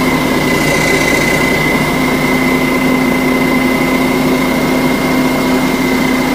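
Mining dump truck's diesel engine idling steadily at close range, with a thin steady high whine over the low running.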